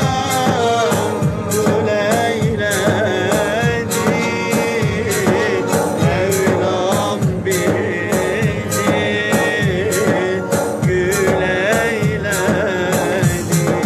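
A man singing a Turkish song with a wavering, ornamented melody over instrumental accompaniment with a steady percussive beat.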